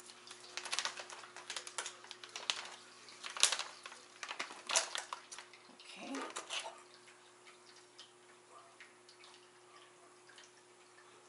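Kitchen handling noise: a run of clicks, taps and rustles as a plastic sugar bag and food cans are handled on a counter. It thins out to a few light ticks after about seven seconds.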